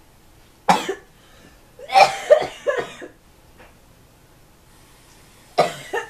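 A person coughing hard, faking coughs for a pretend coughing-up-blood prank: one cough about a second in, a run of several coughs around two to three seconds, and another cough near the end.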